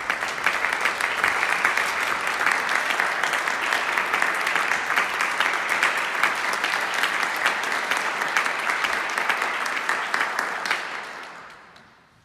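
Audience applauding steadily, the clapping dying away over the last second or so.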